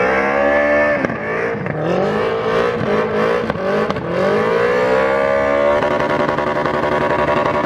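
Vehicle engine revving hard during a burnout, with tyre smoke pouring off the spinning wheels. The revs dip and climb again a few times, then hold steady and high for the last couple of seconds.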